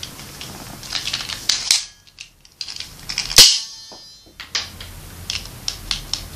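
Dino Blaster, a plastic toy ball-firing gun, firing once with a single sharp snap about three and a half seconds in, among lighter plastic handling clicks.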